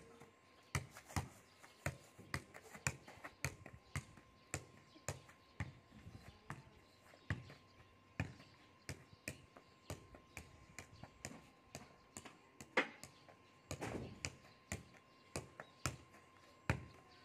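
Football being juggled: a run of short taps as the boy's foot strikes the ball to keep it in the air, about two touches a second, a little irregular.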